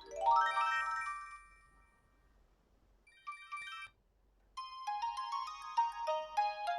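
Samsung Metro 350 (SM-B350E) mobile phone ringtones: a rising run of electronic notes fading away over the first two seconds, a short phrase a little after three seconds in, then another ringtone starting about four and a half seconds in with a quick melody of notes.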